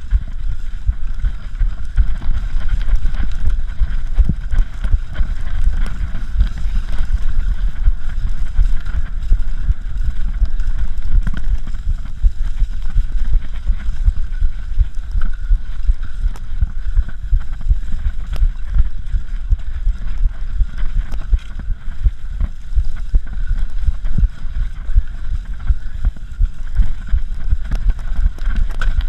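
Wind rumble on the camera and a constant jumble of knocks and rattles as a cyclocross bike is ridden fast over rough, bumpy grass.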